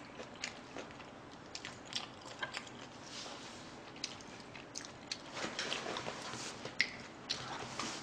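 A person chewing a mouthful of fried rice with spicy stir-fried pork, with irregular small wet mouth clicks and smacks.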